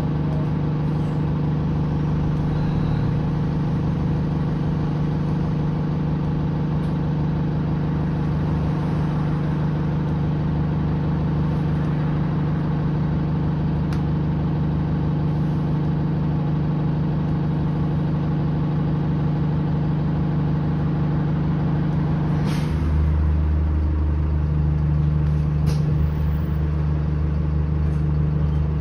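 Alexander Dennis Enviro 200 bus heard from inside the passenger cabin, its diesel engine running with a steady low hum. Near the end there is a knock and the engine note shifts to a deeper hum.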